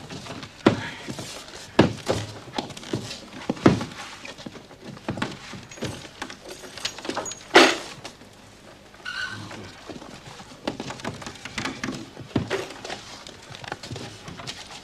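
Irregular thuds, knocks and clatter of things being shifted, opened and dropped during a search, with one louder sharp knock about seven and a half seconds in.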